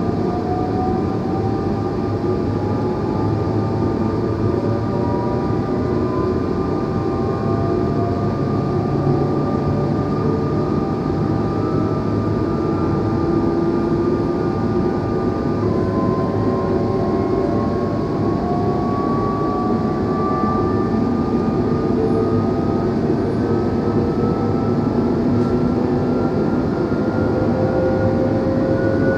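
NMBS/SNCB AM96 electric multiple unit's traction motors and inverters whining as the train accelerates, several tones rising steadily in pitch over a constant running rumble. About halfway the tones drop suddenly, then keep climbing.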